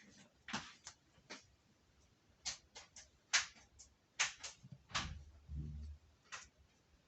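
A cat playing with a small bell toy: about a dozen irregular sharp clicks and taps, with a low dull thud between five and six seconds in.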